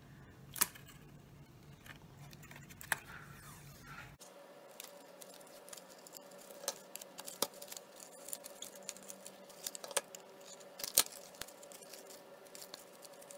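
Faint, irregular clicks and crinkles of a plastic soda-bottle face shield and a roll of electrical tape being handled as the tape is pressed along the shield's edge.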